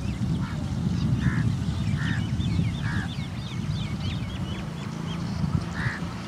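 Birds calling: short honking calls repeated roughly once a second, with a flurry of high chirps in the first half, over a steady low rumble.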